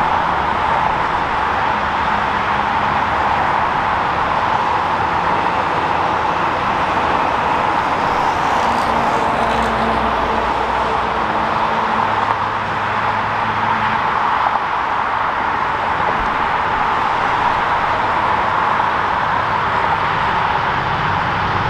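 A steady wash of road-traffic noise, with the faint drone of the approaching train's diesel locomotive coming and going underneath.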